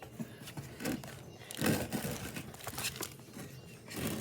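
Brownie batter being spread and scraped around a baking pan with a spatula: irregular rustling, crinkling scrapes, loudest about halfway through.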